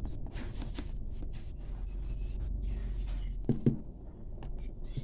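Plastic knife scraping and clicking as it cuts through crumbly egg halwa against the bottom of a plastic container, with two dull knocks about three and a half seconds in.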